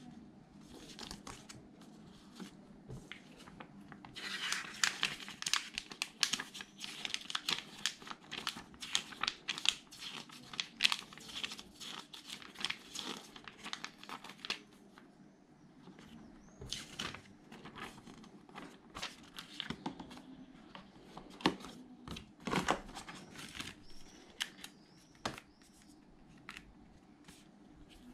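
Paper rustling and crinkling as folded paper instruction leaflets are unfolded and a small printed booklet's pages are leafed through by hand. It is busiest from about four seconds in to about fifteen seconds, then thins to scattered crackles.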